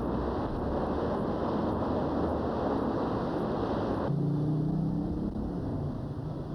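Steady city street traffic noise. About four seconds in it cuts abruptly to a different, duller background with a low hum.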